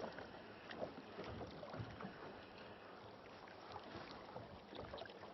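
Faint water and light wind around a small boat, with a few soft, scattered knocks.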